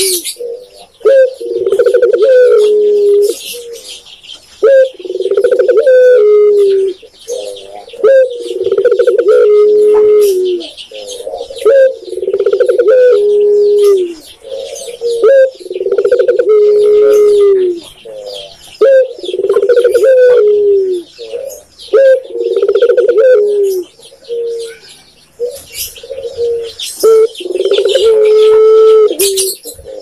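Spotted dove (tekukur) cooing over and over, a phrase every two to three seconds, each ending on a falling note. Faint high chirps of small birds run behind it.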